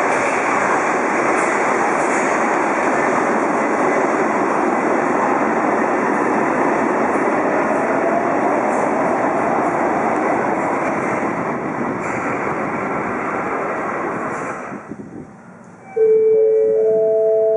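Yokohama Municipal Subway Blue Line train pulling away into the tunnel, a loud steady rumble of wheels and running gear that dies away about fifteen seconds in. Near the end a chime of several steady tones starts up.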